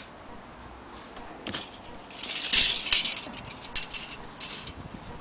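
Handling noise from a metal tape measure: scraping and rattling with sharp clicks, loudest for about a second near the middle, as the tape is drawn out and laid across the clock's glass case.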